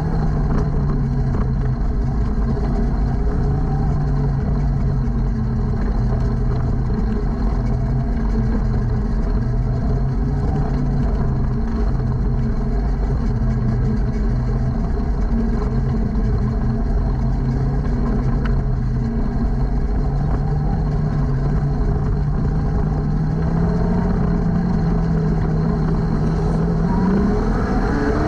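Jr sprint car engine running at low, steady revs while the car rolls slowly around the track, then revving up sharply near the end as the car accelerates.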